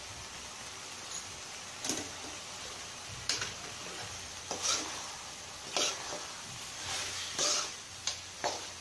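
Steel spoon stirring chicken and masala in a stainless steel pot, scraping and clinking against the pot about six times at irregular intervals, over a steady sizzle of the chicken frying.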